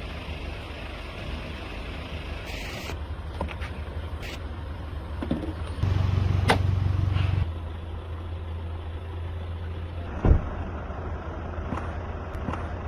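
A motor vehicle's engine running with a steady low hum that grows louder for about a second and a half midway. There are a few faint clicks and one sharp knock a little past ten seconds in.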